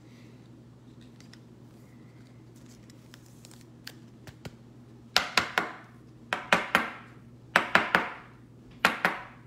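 Sharp clicks and snaps from trading cards, packs and plastic card holders being handled on a table, in four quick clusters of two or three starting about five seconds in.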